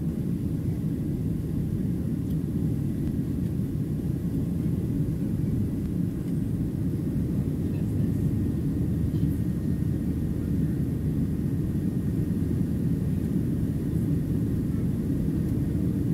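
Steady low rumble inside the cabin of a Boeing 737-700 climbing after takeoff, from its CFM56-7B engines at climb thrust and the airflow over the fuselage.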